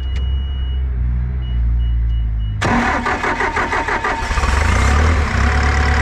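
A few short electronic beeps, then the Bobcat T770's Doosan D34 diesel is cranked from about two and a half seconds in and catches, running loud and steady from about four seconds in. It is a hard-starting engine with low rail pressure, started with the injector leak-off open for a back-leak check, and injectors one and two are leaking back heavily.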